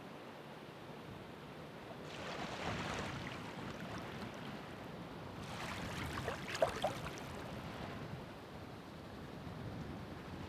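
Ocean waves washing on the shore over a steady surf hiss: one wave breaks about two seconds in and a second, crackling one around six seconds in.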